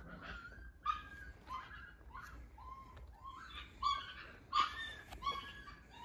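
A dog whining in short, high, repeated whimpers, about two a second.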